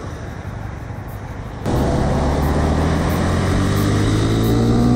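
Low idling-engine rumble and passing traffic, then, a little under two seconds in, a sudden cut to the louder onboard sound of a Honda Twister's single-cylinder engine under way on the highway, with a rush of wind noise. Near the end the engine note rises as the bike accelerates.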